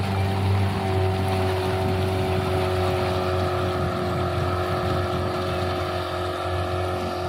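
Small outboard motor on the boat ahead running steadily at cruising speed while it tows a disabled speedboat on a rope, with the hiss of water rushing past the hull.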